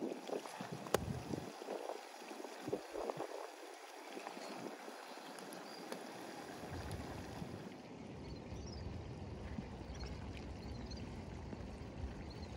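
Kidney and vegetables sizzling in a large wide steel pan over a wood fire, with a few light knocks and a sharp click in the first seconds as whole tomatoes and a chili pepper are set on top. A steady low rumble sets in about halfway, and faint high chirps come near the end.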